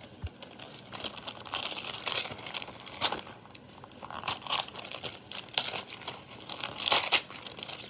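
Gift wrapping paper crinkling and tearing as a wrapped DVD case is unwrapped by hand: irregular rustling with a few sharper rips, the loudest about three seconds in and near the end.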